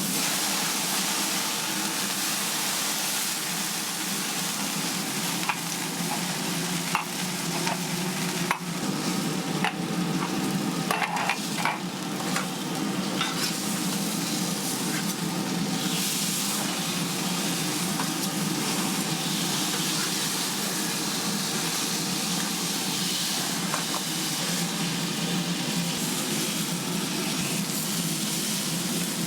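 Food frying with a steady sizzle, with occasional short clicks and knocks, most of them in the first half.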